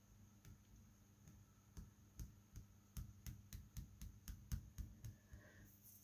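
Faint light taps, a few a second and coming closest together in the middle: fingertips patting the back of a small tile laid face-down in wet acrylic paint.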